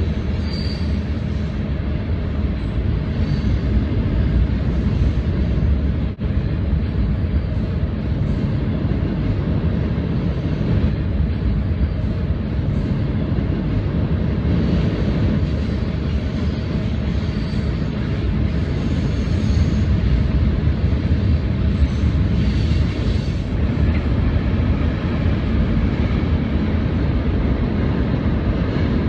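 Added sound effect of a full-size train running: a steady low rumble, with a few faint brief high squeals and a short break about six seconds in.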